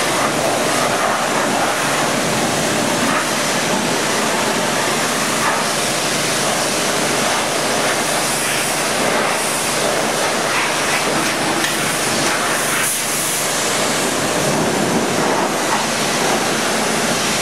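Pressure washer jet spraying water against a steel machine frame and the wet concrete floor: a loud, steady hiss and spatter as concrete buildup is rinsed off.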